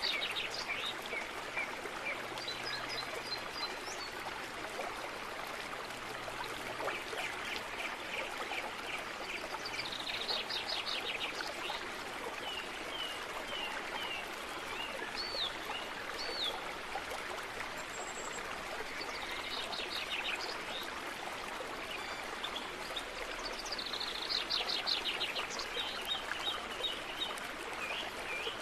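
Birds chirping, with several bursts of rapid trilling and a few short rising chirps, over a steady rushing hiss like a running stream.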